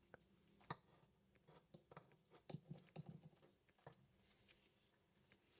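Near silence with faint, scattered clicks and taps of small plastic compressor parts being handled during disassembly.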